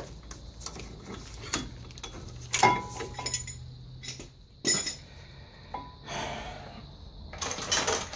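Metal clinks and knocks from brake parts and hand tools being handled at a disc brake caliper while the brake pads are worked loose. There are several separate sharp clinks, the loudest about two and a half seconds in with a short ring, then scraping near the end.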